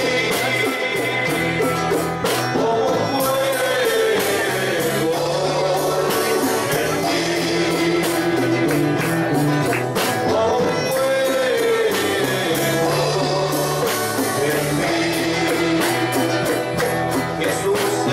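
A congregation sings a Spanish-language worship song over live band accompaniment, with voices carrying the melody above a steady bass line and a regular beat.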